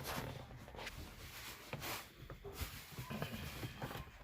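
Faint rustling and light clicks and knocks of hand work, as a wiring harness is pushed and tucked in under a car seat.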